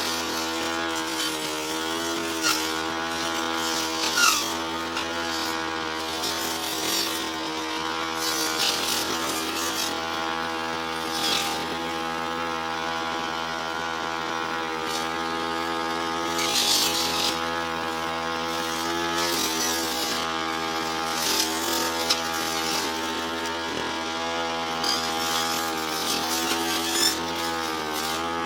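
Brush cutter's small engine running steadily at high speed, its pitch wavering a little as it works, with short hissing swishes now and then as it cuts through tall, thick grass.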